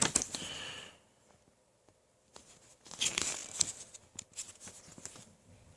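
Paper rustling as brochure pages are handled and turned: a short rustle at the start, a pause, then a longer stretch of rustling with a few light clicks from about two and a half seconds in.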